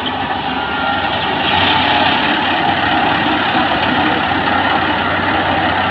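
Kubota PRO588-IG mini combine harvester's engine running steadily, a little louder after about a second, with a low hum under the machinery noise.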